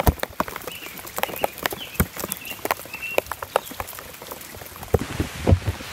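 Rain falling into a puddle of standing water: an irregular patter of drops splashing on the surface, with a few heavier, deeper splashes near the end.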